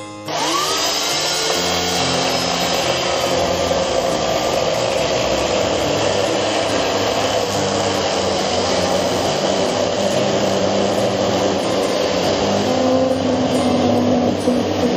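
Electric chainsaw spinning up with a short rising whine, then running steadily under load as the chain crosscuts through pine boards.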